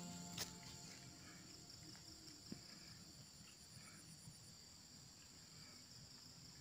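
Near silence with faint, steady insect chirring, and one soft click just after the start.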